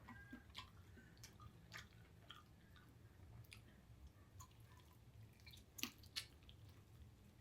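Faint, wet chewing of a mouthful of roast paprika chicken thigh: scattered soft smacks and mouth clicks, with two sharper clicks about six seconds in, over a low steady hum.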